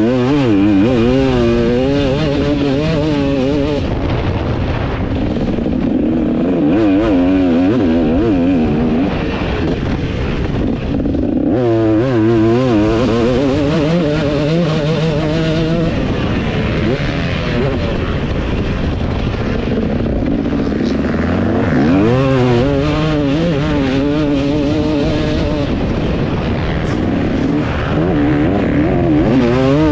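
KTM 250 SX two-stroke engine with a KTM factory expansion chamber and Pro Circuit R304 shorty silencer, ridden hard. Its revs climb and fall repeatedly as the throttle is opened and chopped, with strong surges near the start, about twelve seconds in, about twenty-two seconds in and again at the end.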